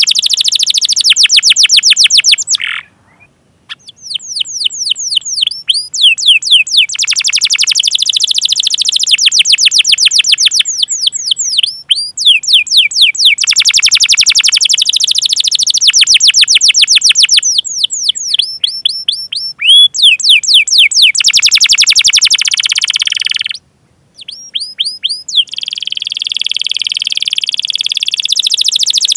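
Canary singing a long, loud song of fast repeated chirps and dense rolling trills, with two brief pauses.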